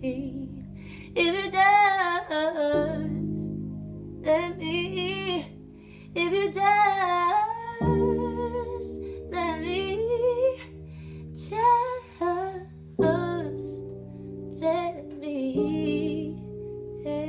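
A woman singing wordless, drawn-out runs with a wavering vibrato, in phrases of a second or two, over slow sustained backing chords that change every few seconds.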